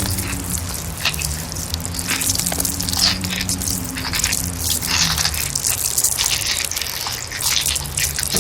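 Water dripping and splashing in irregular drops over a low, steady droning hum: a horror ambience effect.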